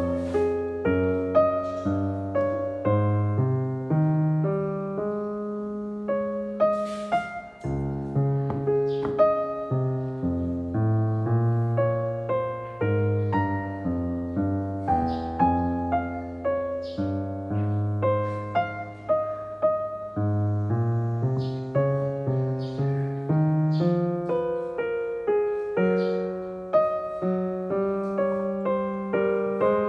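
Background piano music: a gentle melody of changing notes over lower chords.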